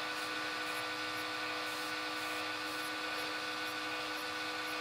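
Meade LX200GPS telescope's drive motors whining steadily as the fork mount slowly turns, searching for its home position during start-up.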